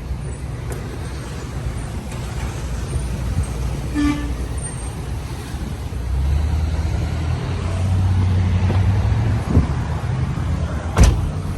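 Motor vehicle and road noise with a steady low rumble. A brief pitched tone sounds about four seconds in, the low hum swells for a few seconds after the middle, and a sharp thump comes near the end.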